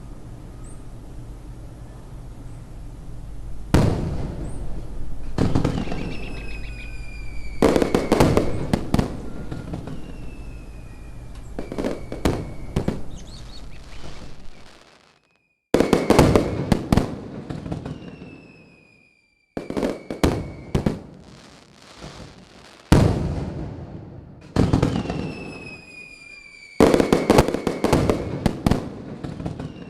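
Fireworks bursting again and again, with crackling and short falling whistles, the sound breaking off abruptly a few times between bursts.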